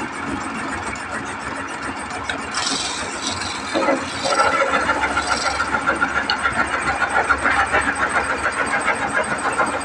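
Wood lathe running while a hand chisel cuts a groove into the spinning wooden spindle. The cutting grows louder and scrapes in quick pulses from about four seconds in.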